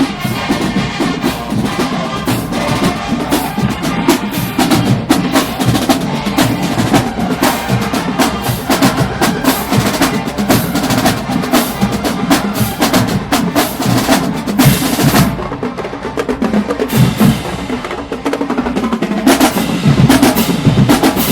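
Marching band drumline playing a cadence: rapid snare and drum strokes with bass drum hits, keeping a steady marching beat.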